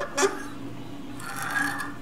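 Hand-turned 1/4-inch 19 TPI die in a die stock cutting a thread onto a brass Gaggia Classic steam valve held in a vice. There is a click just after the start, then a rasping, squeaky scrape as the die is turned through a stroke about a second in.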